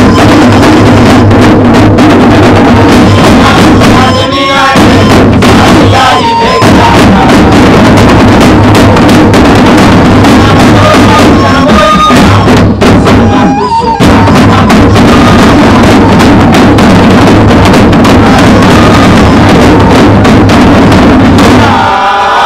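An ensemble of tifa hand drums is beaten loudly in a continuous rhythm. There are short breaks about four, six and fourteen seconds in.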